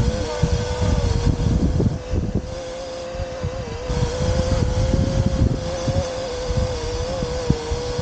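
Parrot Anafi quadcopter hovering, its propellers giving a steady whine that wavers slightly in pitch as it holds against strong wind. Gusty wind rumble on the microphone is the loudest sound and eases off for a couple of seconds midway.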